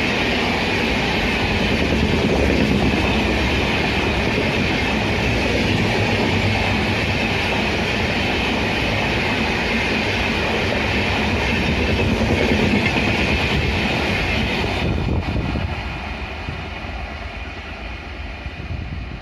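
A train running at speed on Indian Railways track, with a steady heavy rumble and wheels clattering over the rails. The noise drops off and thins out about fifteen seconds in.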